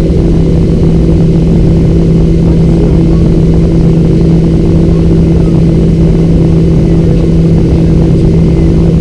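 Boeing 737-800's CFM56-7B jet engines running at taxi idle, heard inside the cabin near the wing: a loud, steady drone with a constant low hum that does not change.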